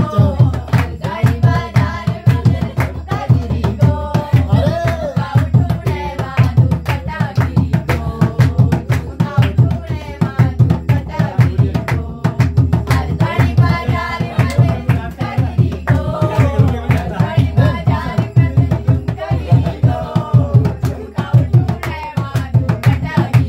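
Two-headed barrel hand drums (dholak) beaten in a fast, steady rhythm, with voices singing a folk song over them.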